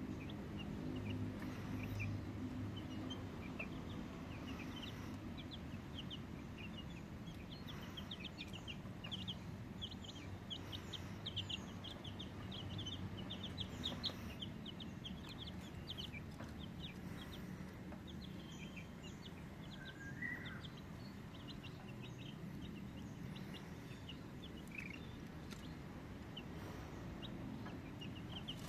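Indio Gigante chickens clucking, with a steady scatter of short high chirps throughout and a low steady hum underneath.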